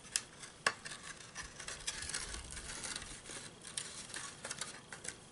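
Light rustling and scratching of a small paper gift bag and twine being handled and threaded, with irregular small clicks, two sharper ones in the first second.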